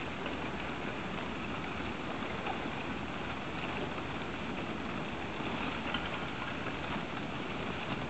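River drift ice grinding and crackling as the floes press and scrape against each other: a steady noise full of small clicks and crunches.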